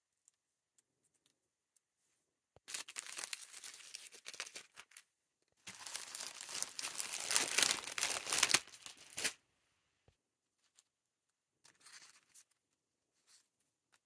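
Clear plastic sleeve crinkling as it is handled and held up: two long stretches of crackling, the second louder, then a brief faint rustle near the end.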